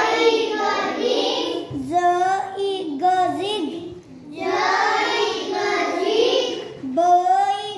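A young child's voice reading aloud from a picture word book, drawing the words out in long chant-like stretches with short pauses between them.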